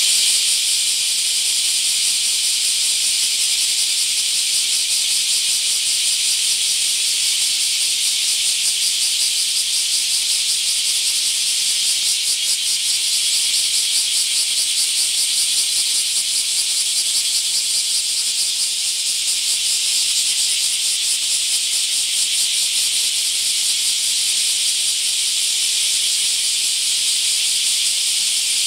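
A dense chorus of many bear cicadas (kumazemi, Cryptotympana facialis) calling at once: a loud, steady, rapidly pulsing high buzz that never breaks.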